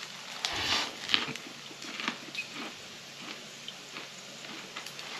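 A man chewing a mouthful of grilled pork belly ssam with chili pepper, garlic and ssamjang, with irregular short wet clicks and smacks.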